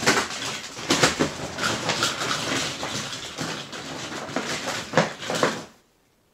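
Plastic bag rustling and small plastic toy figures clicking and clattering against each other as a hand digs through a bag of action figures. It stops suddenly near the end.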